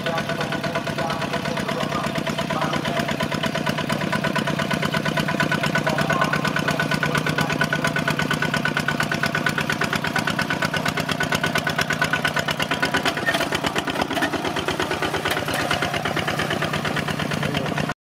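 Two-wheel walking tractor's single-cylinder diesel engine running steadily under load while plowing, with a fast, even beat. The sound cuts off abruptly for a moment at the very end.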